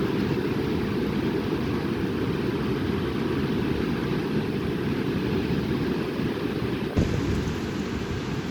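Strong wind buffeting the microphone in a steady low rumble, with a brief thump about seven seconds in.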